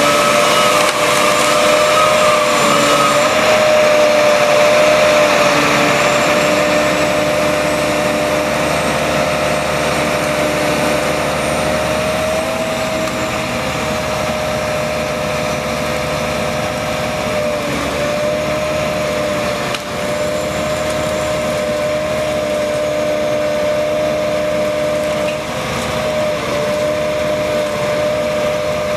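Hydraulic circular-saw head of a DOLL Tree Trimmer felling crane running with a steady high whine, with the crane's engine running beneath it.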